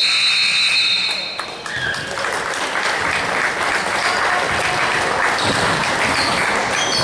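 A crowd applauding and cheering from about two seconds in, after a high steady tone that cuts off about a second and a half in.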